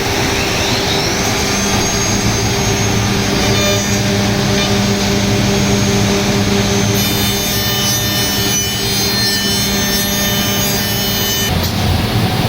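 HOMAG CNC router machining a round wooden table top: a steady spindle whine over a loud rushing noise. One whine climbs in pitch during the first second, and the sound changes abruptly near the end.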